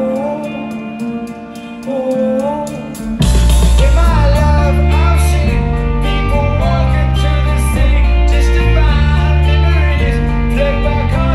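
Live rock band with a lead singer. A quieter passage of singing and guitar over light, regular ticking, then the full band with drums and bass comes in loudly about three seconds in and keeps going.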